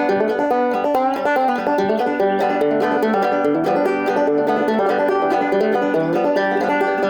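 Five-string banjo played solo with a fast, continuous picking roll.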